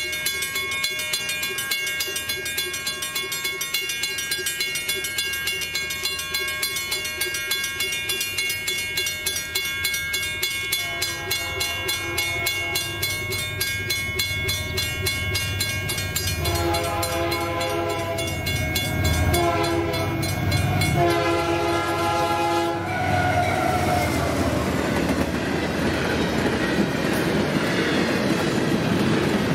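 Level-crossing warning bells ringing rapidly while a freight train approaches. Its horn sounds in several blasts that grow louder, the last ending about 23 seconds in. Then the rumble and clatter of its intermodal well cars rolling through the crossing.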